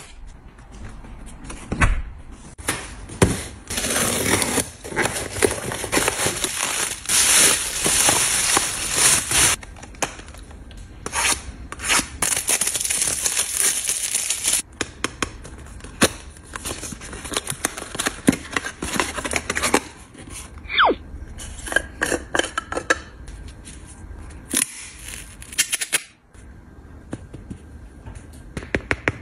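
Clear cellophane wrap on a small cardboard cosmetics box crinkling and tearing as it is peeled off, loudest in the first half, followed by scattered taps and clicks of the packaging and compact being handled.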